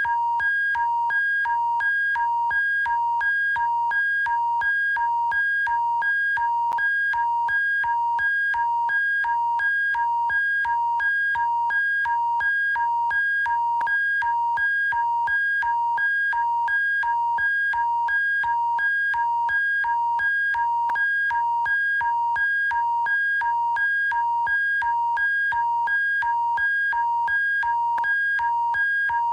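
Electronic emergency alert attention tone: two high-pitched tones sounding together, pulsing on and off about twice a second in a steady repeating pattern.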